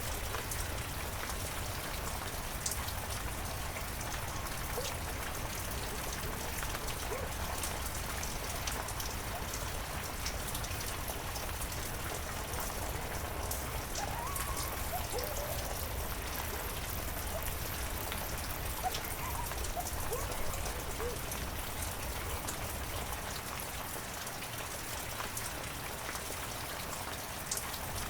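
Heavy rain falling steadily, with a constant hiss and scattered individual drops ticking on surfaces.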